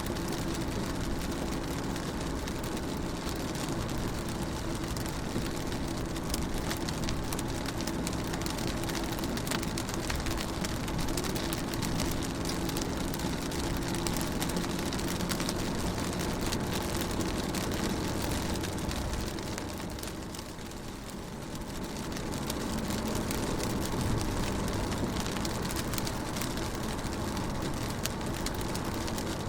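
Rain on a car, heard from inside: a steady patter of raindrops on the window, with a low steady hum underneath. It eases briefly about two-thirds of the way through.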